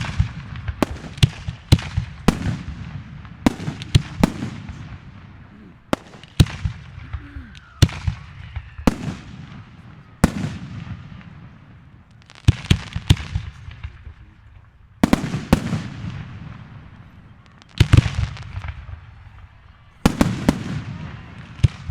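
Aerial fireworks shells bursting one after another, sharp bangs each trailing off, coming in quick clusters with short lulls between them.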